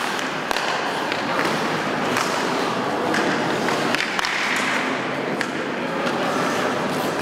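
Ice hockey play: skate blades scraping the ice under a steady hiss, with scattered sharp clacks of sticks and puck about once a second.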